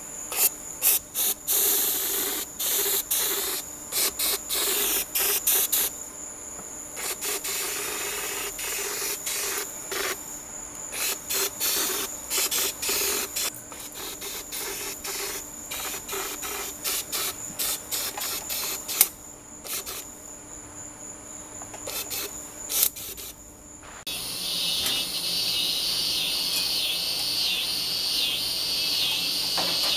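Electrostatic powder coating gun spraying in many short trigger bursts of air hiss, each starting and stopping sharply, over a steady high whine. About 24 seconds in, the spraying gives way to a rapid, evenly pulsing chirr.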